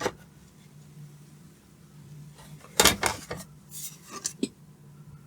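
Clicks and a short clatter of small hard objects being handled on a workbench, loudest about three seconds in, with a few lighter ticks after, over a low steady hum.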